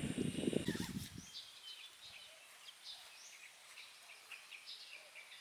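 Small birds chirping, many short high calls following one another. A low rumble is heard in the first second.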